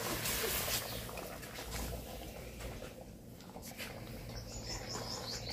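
Curry bubbling and sizzling in a wok over a wood fire while a spatula stirs and scrapes through it, the hiss strongest in the first second. A bird chirps a quick run of high notes near the end.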